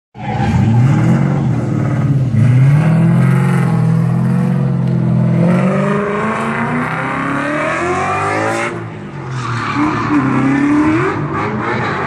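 2015 Ford Mustang RTR drift car's engine revving hard, its pitch rising and falling again and again, with tyre squeal as the car drifts. The engine eases briefly about nine seconds in.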